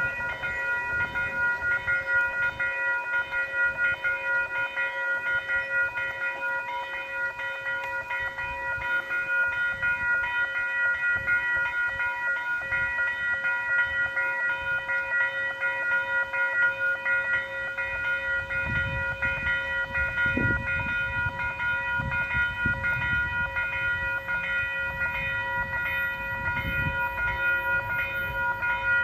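Railroad crossing warning bell ringing steadily as the crossing gates lower and stay down. In the last third a low rumble grows beneath it as a train approaches the crossing.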